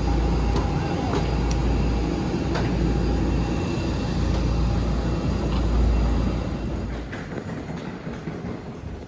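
Outdoor airport apron noise: a steady low rumble with a faint steady whine. It cuts away about seven seconds in to quieter indoor room sound.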